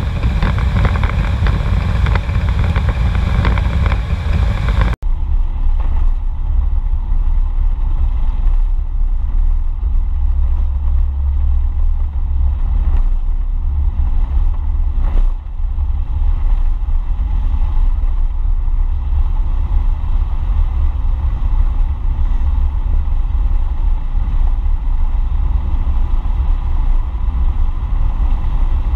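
Toyota AE86 Sprinter driving at road speed, heard from outside the car: a steady wind rumble on the microphone mixed with road and engine noise. About five seconds in, the sound changes abruptly and becomes duller, with less hiss and a steadier low rumble.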